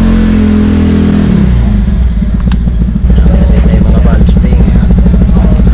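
Motorcycle engine running close by: a steady drone for about the first second and a half, then dropping into a rapid, even pulsing beat that gets louder about three seconds in.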